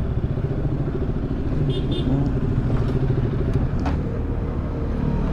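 Street traffic: motor vehicle engines running steadily, with two short high beeps about two seconds in.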